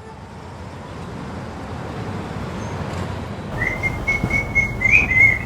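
A steady rushing background noise that grows louder, with a high, thin whistling tone coming in over it in the last two seconds.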